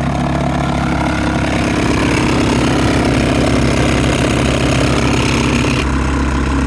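2018 Toyota Sienna's HVAC blower motor running with a loud, harsh grinding noise; the mechanic suspects something has fallen into the fan wheel and judges the motor no longer serviceable. About six seconds in, the higher hiss drops away while the low hum carries on.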